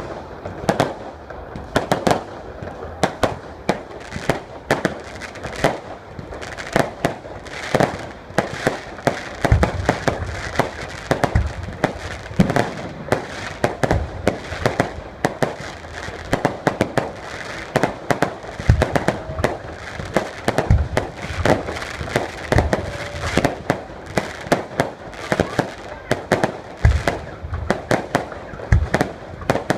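Fireworks display: a rapid, continuous run of bangs and crackles from shells bursting overhead, with deeper booms joining in from about ten seconds in.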